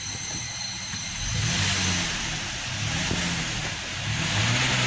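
Ford Explorer 3.5-litre V6, freshly top-overhauled, revved three times in park, each rev climbing and falling back toward idle, heard from inside the cabin.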